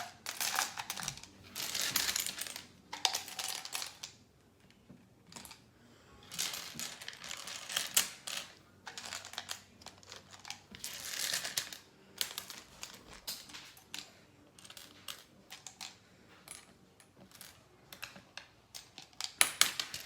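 Light clicking and rustling of small hard objects being handled, in irregular bursts of a second or two with short pauses between.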